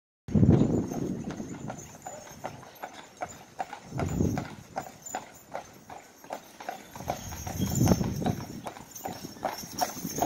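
Team of two Clydesdale mares walking on asphalt, hooves clip-clopping in a steady rhythm of a few beats a second. A low rumble swells up three times underneath.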